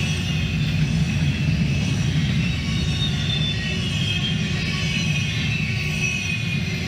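Double-stack intermodal freight train rolling past at speed: a steady rumble of wheels and cars on the rails, with thin high tones wavering over it.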